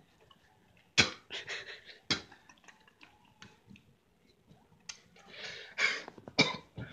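A person coughing in sharp bursts, about a second in, again a second later and once more near the end, with ragged breathing and smaller coughs between.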